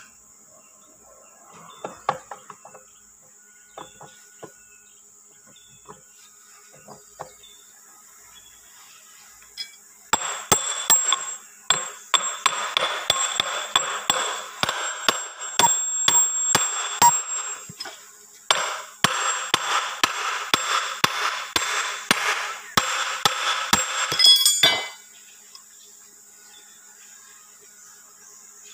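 A hammer tapping a steel gear onto the splined shaft of a differential, a rapid run of ringing metal-on-metal strikes that starts about ten seconds in, pauses briefly midway and stops a few seconds before the end. Before that, a few light clinks of the metal parts being handled.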